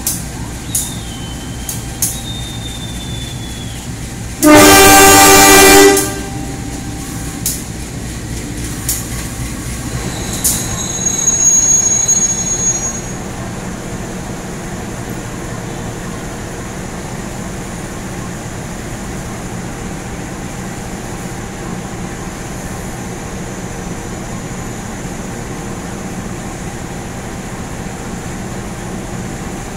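Diesel locomotive horn sounding one loud blast about a second and a half long, over the steady running of the locomotive's diesel engine. A hiss with a high squeal follows a few seconds later.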